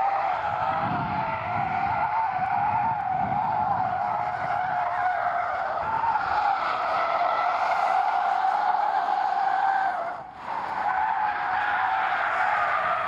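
Tesla Model 3 Long Range Dual Motor's tyres squealing in a sustained power slide on asphalt, with traction and stability control disabled. The wavering squeal runs on, dips out briefly about ten seconds in, and picks up again.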